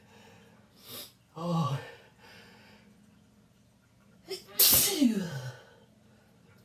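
A person's loud sneeze about four and a half seconds in: a sudden explosive burst trailing off into a falling voiced tail. A groaned 'oh' comes earlier as the sneeze builds. The sneeze is brought on by chhinkni sneezing powder.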